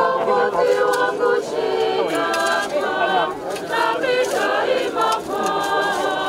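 A group of voices singing together in a choir, the sung lines held and changing pitch continuously.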